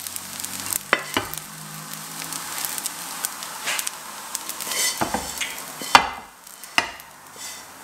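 Wooden spatula stirring and scraping fried rice in a non-stick wok, then scraping it out onto plates, with several sharp knocks of spatula on the pan, the loudest about six seconds in.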